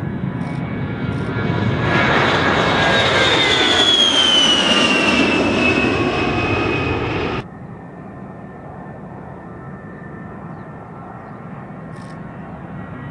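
A-10 Warthog's twin TF34 turbofans at takeoff power: a loud jet rush with a high whine that slides down in pitch as the aircraft climbs past. About seven seconds in the sound cuts off abruptly, replaced by the quieter, steadier engine noise of a second A-10 taking off.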